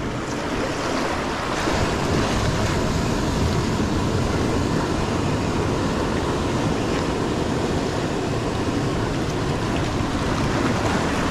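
Ocean surf breaking and washing around shoreline rocks, a steady rush of water, with wind buffeting the microphone.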